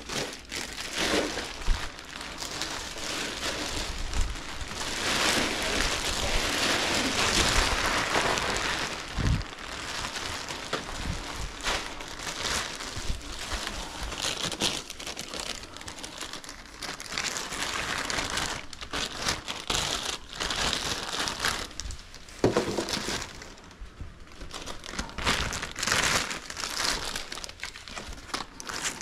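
Packing material crinkling and rustling in irregular handfuls as parts are wrapped and packed by hand, busiest in the first third, with a few soft knocks.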